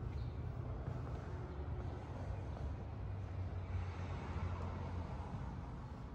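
Helicopter flying overhead: a steady low rumble.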